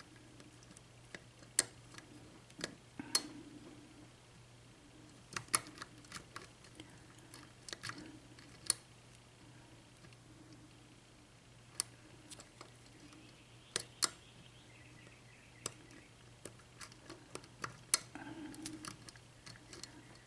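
Lock pick clicking and scraping against the pins inside an LSDA pin-tumbler lock during single-pin picking, in quiet, irregular, sharp ticks with a few louder clicks.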